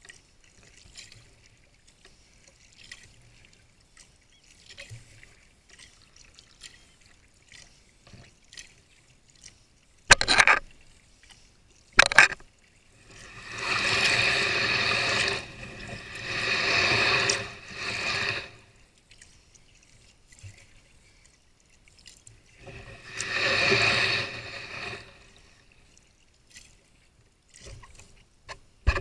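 Sea kayak paddled through shallow water: faint paddle drips, then two sharp knocks about two seconds apart, then three longer surges of rushing water and hull noise, each lasting two to three seconds.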